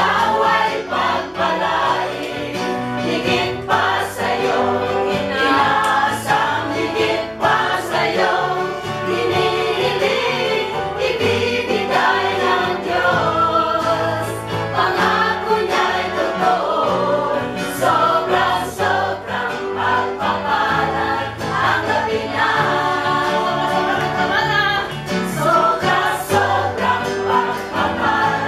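Gospel choir singing a song with instrumental backing.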